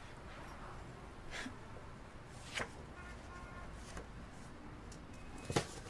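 Quiet room tone with a few short crisp rustles and taps of paper as mail and folders are handled. The loudest one comes near the end.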